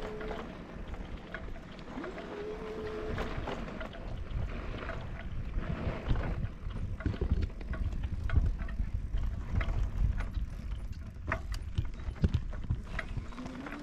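A vehicle driving slowly on a rough road: a steady low rumble with frequent knocks and rattles. A whine rises and levels off about two seconds in, and rises again near the end.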